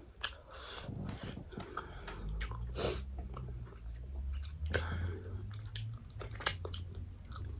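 Close-miked chewing and biting into fried fish, with scattered sharp mouth clicks.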